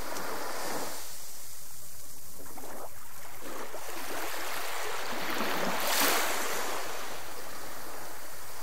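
Steady rush of wind and choppy sea water around a moored sailboat, swelling briefly about six seconds in.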